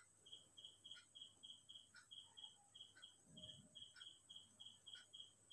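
Near silence, with a faint, even chirping about four times a second and a faint tick about once a second.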